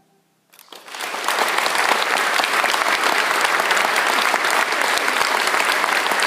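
Audience applause at the end of a choral piece: after half a second of silence the clapping breaks out and quickly builds to steady, full applause.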